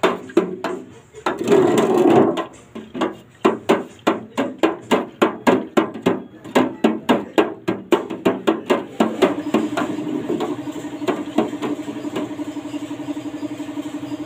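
Flat stirring stick scraping and knocking against the sides of a container while automotive top coat is mixed with hardener and thinner, a quick rhythm of about three knocks a second. About nine seconds in, a motor starts running steadily underneath as the knocking fades.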